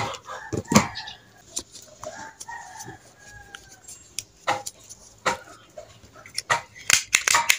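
Chickens clucking with a rooster crowing in the background, over sharp snips of scissors and the crackle and rustle of banana leaves being trimmed and folded by hand.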